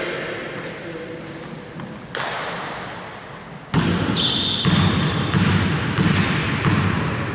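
Basketball being dribbled on the court, low thumps about one and a half a second, echoing in a large hall. A brief high squeak comes about four seconds in.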